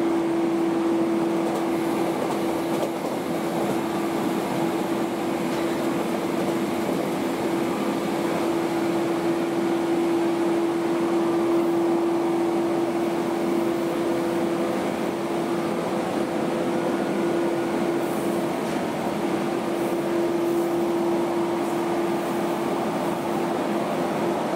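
Cabin sound of a 115-series electric train's motor car running at a steady speed: an even rumble of wheels on rail with a constant hum held at one pitch.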